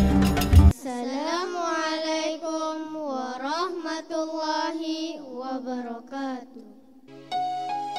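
A children's choir singing in unison without accompaniment: a slow, ornamented chant whose long notes slide up and down, ending about a second before the end. It is preceded by a brief burst of loud drum-beaten music, and a soft keyboard tune comes in near the end.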